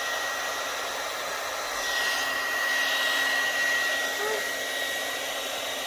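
YAPOY high-speed ionic hair dryer running steadily: a rush of airflow with a high motor whine, swelling slightly midway.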